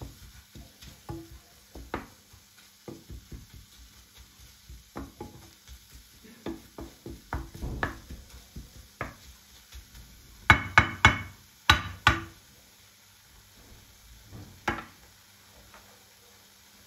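A cooking utensil knocking and scraping in a frying pan as food is stirred, over a faint sizzle of frying. Short irregular knocks, with a cluster of louder knocks about ten to twelve seconds in and a last one near fifteen seconds.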